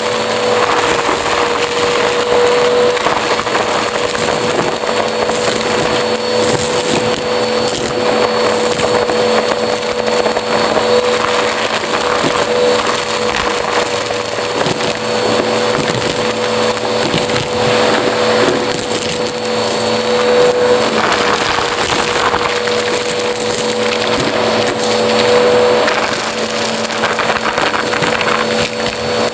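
Bissell upright vacuum cleaner running with a steady humming whine as it sucks up a heap of small debris, the bits crackling and rattling up the nozzle.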